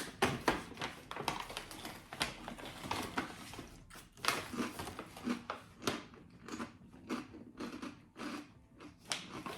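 A person chewing crunchy baked rice crackers, with irregular crisp crackles and crunches close to the microphone.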